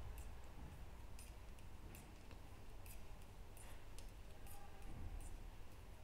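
Metal knitting needles clicking lightly and irregularly against each other as stitches are purled, about one or two faint clicks a second.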